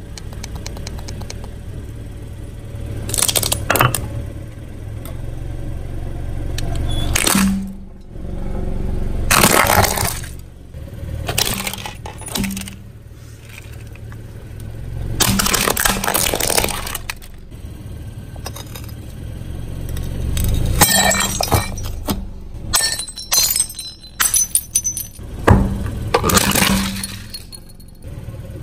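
Things cracking and crunching under a slowly rolling car tyre: a series of separate crunches and snaps, with a run of quick crackling about two-thirds of the way through, over a steady low rumble from the car.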